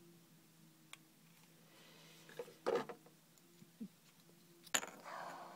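Faint handling noise of small plastic and metal parts as the laser pickup unit and its slider shaft are lifted out of a Philips CD transport: a few light clicks and a short rub, with one sharper click near the end.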